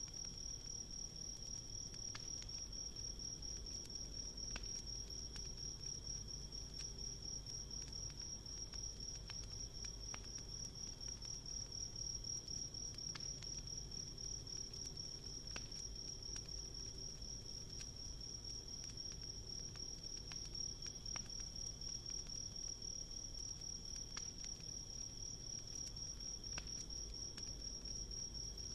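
Insects trilling in a steady, high-pitched chorus, with scattered faint pops from a crackling campfire.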